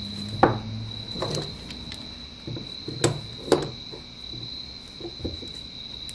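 Steel screw bar clamps being fitted and tightened onto wooden grip panels: a few sharp metal clicks and knocks as the sliding jaws and handles are worked, over a steady high-pitched tone.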